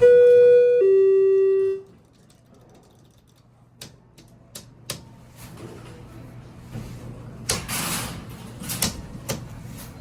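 Elevator chime sounding two descending tones, the higher held under a second and the lower about a second. It is followed by softer clicks and shuffling as the elevator doors work, over a low steady hum.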